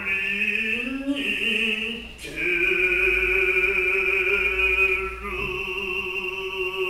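Noh chant (utai): a voice singing long, held notes with a slow waver, in three phrases, the longest held for about three seconds in the middle.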